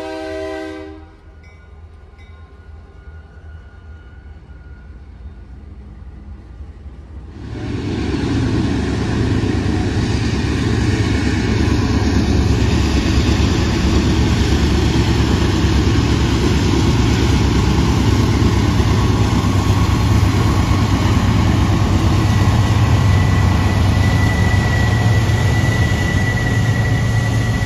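A train horn chord cuts off about a second in, leaving a quieter low rumble. About seven seconds in, the loud, steady rumble and wheel noise of a train passing close begins and carries on, with a faint high whine joining near the end.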